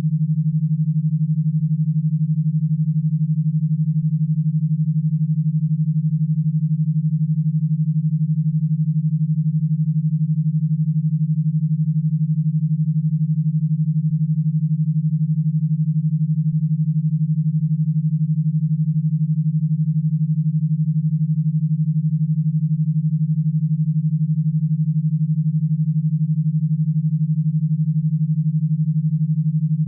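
Synthesized e-stim signal: a single steady low tone near 150 Hz, pulsed at 12 Hz, made to drive an electrostimulation power box such as the E-Stim 2B.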